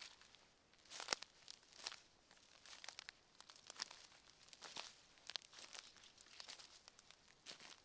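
Faint footsteps crunching on the forest floor at an even walking pace, about one step a second, each step a short crackly crunch of dry ground litter underfoot.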